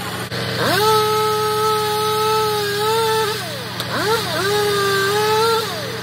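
Mack grapple truck's engine and hydraulic boom working: over a steady engine rumble, a whine rises, holds for about two and a half seconds and falls, then rises and falls again, as the engine speeds up to drive the grapple.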